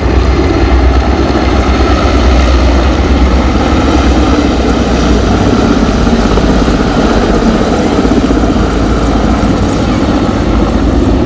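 Four Mil Mi-17 twin-turbine transport helicopters flying overhead in formation. Their rotor and engine noise is loud and steady, with a heavy low rumble.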